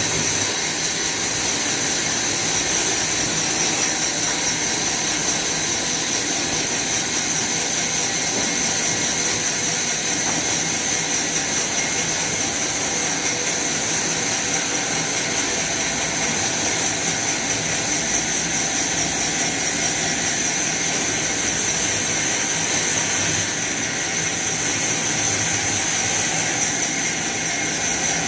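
Horizontal band sawmill running steadily, its blade sawing through a mahogany log with a high-pitched whine over the machine's running noise.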